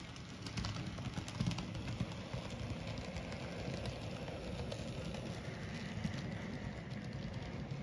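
N scale model freight train rolling past with a steady low rumble. Its wheels click rapidly over the rail joints and a diamond crossing, most densely in the first couple of seconds.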